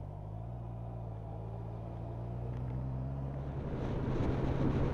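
Motorcycle engine running at low speed through a left turn, with a steady low note that rises a little as it pulls on. About four seconds in, louder wind and road rush at higher speed takes over, blowing on the microphone.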